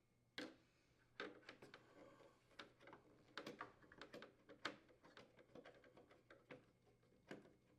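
Faint, irregular clicks and light metallic taps as a nut driver unthreads the screws on a refrigerator's condenser fan motor mounting bracket.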